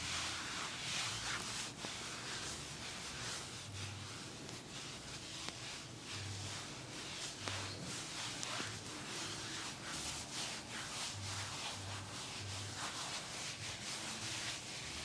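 Hands rubbing and sliding in a massage: a continuous soft hiss of friction made of many short strokes, with a few soft low thuds now and then.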